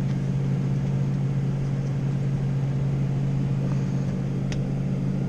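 Steady low mechanical hum, with one light click about four and a half seconds in.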